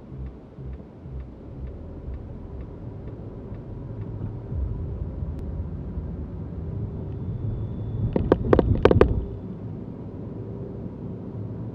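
Car engine and road noise heard from inside the cabin, growing as the car pulls away, with faint ticking about twice a second in the first few seconds. About eight seconds in, a quick run of five or six sharp clunks as the tyres cross the railway tracks at a level crossing.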